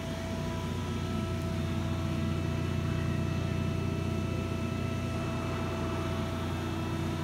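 Hydraulic system of a Cincinnati 175 CBII CNC press brake running at rest: a steady machine hum with a low drone and a few faint constant whining tones above it.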